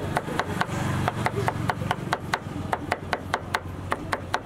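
Chef's knife mincing garlic on a wooden cutting board: quick, even chops at about four a second.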